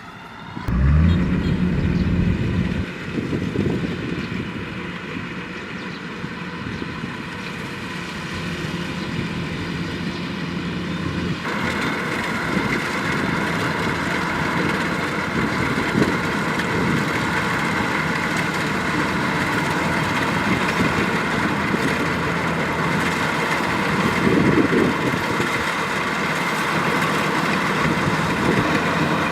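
Kubota DC-105X combine harvester running steadily, its engine loud with a surge about a second in. About eleven seconds in the sound turns brighter and stays so.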